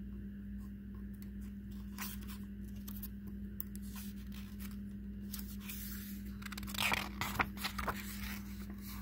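A hardcover picture book's cover being turned open, with a brief papery scrape and rustle about seven seconds in, after a few light handling ticks. A steady low hum runs underneath.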